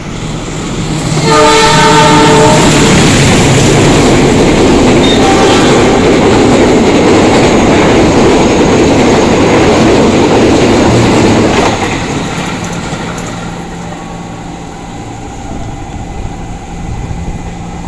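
Argo Parahyangan express train passing close at speed on the next track. It sounds its locomotive horn, a chord of several notes, for about a second near the start. The rush of its wheels and carriages follows for about ten seconds, then fades after it has gone by.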